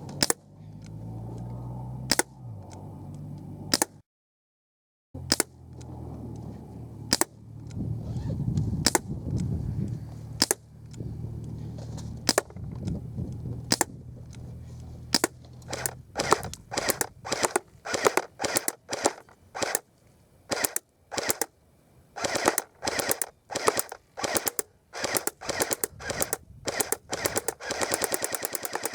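BB guns firing at a modem: single shots about one every one and a half to two seconds, speeding up to about two a second and then quick bursts near the end. A brief cut to dead silence about four seconds in.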